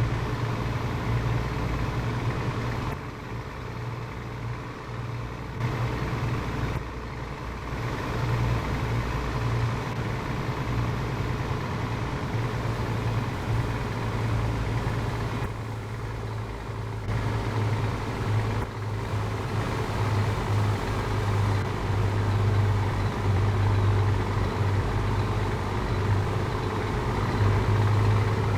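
Scania 500S truck's diesel engine idling through a straight-through exhaust, a steady low drone.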